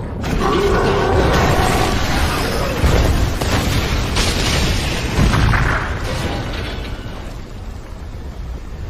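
Anime battle sound effects of giant Titans fighting: a dense booming rumble of crashes and debris, with two sharper hits about three and five seconds in, then the din fades.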